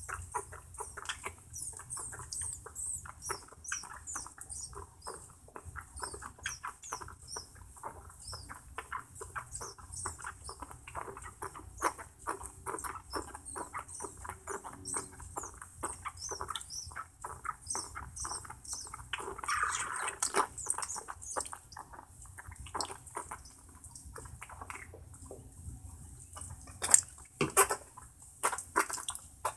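Baby raccoon suckling from a baby bottle: a fast run of small wet sucking and smacking clicks, with high little chirps repeating over them. A few louder knocks near the end.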